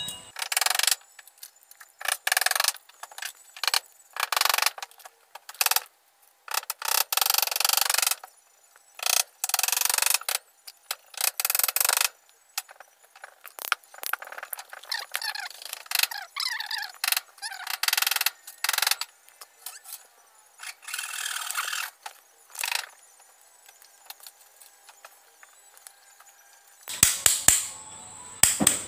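Metal parts of an electric fan motor clinking, rattling and scraping as the motor is put back together by hand, in short irregular bursts with a few brief squeaks.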